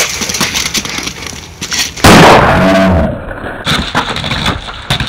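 Scuffling and knocks from a mock fistfight. About two seconds in comes a sudden, very loud, distorted crash lasting about a second.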